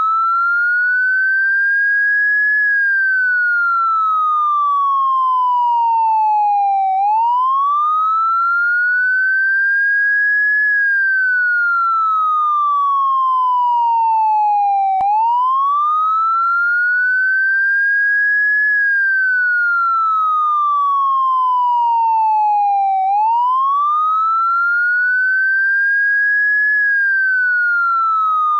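Electronic police car siren sounding a slow wail: a clean tone climbs over about three and a half seconds, then falls steadily for about four and a half, repeating every eight seconds. There is a single click about fifteen seconds in.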